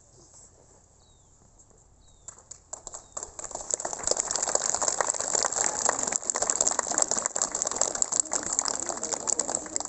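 Crowd of schoolchildren and guests applauding: scattered claps about two seconds in that swell into steady loud applause, thinning out near the end.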